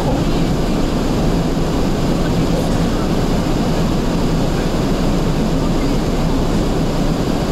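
Strong wind driving snow across the road: a loud, steady rushing noise with a steady low hum underneath.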